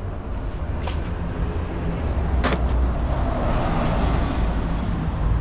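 Street traffic with a city bus passing close by: a low engine and tyre rumble that swells over the second half. A single sharp click about halfway through.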